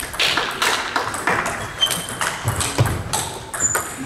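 Celluloid/plastic table tennis balls clicking off tables and bats: many short, sharp, irregular clicks from play in a large hall.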